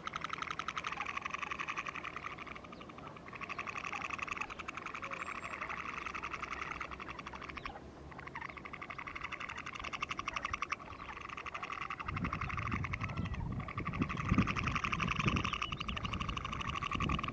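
A chorus of frogs calling in fast pulsed trills, in bouts broken by short gaps. Low, irregular rumbling joins in for the last few seconds.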